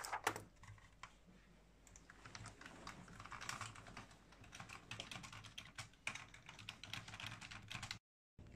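Typing on a computer keyboard: a quick, irregular run of key clicks that begins about two seconds in and cuts off suddenly near the end. A brief handling noise comes right at the start.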